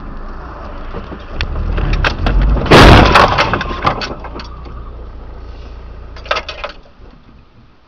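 Car crash heard from inside a dashcam car: low engine and road rumble, then about three seconds in one loud sudden impact with breaking glass and a scatter of clattering debris. A few more sharp rattles follow near the end.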